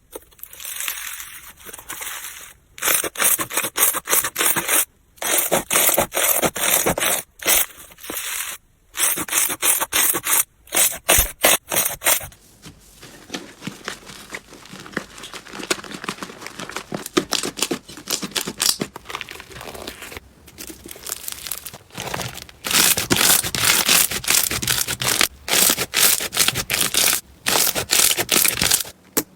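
Slime being squeezed and pressed by hand, making dense runs of small crackling clicks in short takes separated by brief breaks. It is quieter through the middle and louder again near the end.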